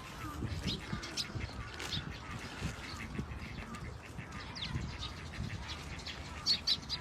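Birds calling, a mix of many short high chirps, with two louder chirps near the end.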